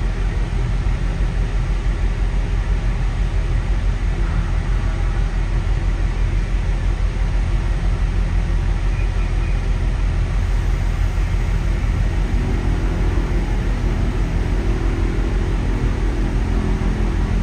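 Steady low rumble of an LNG-fuelled car ferry's engines and side thrusters working as it berths, with a faint low hum joining in toward the end.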